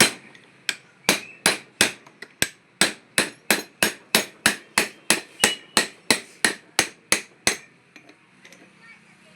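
Steady hammer blows on metal during alternator bearing repair, about three sharp strikes a second, about twenty in all. They stop for a moment near the end, then one more strike follows.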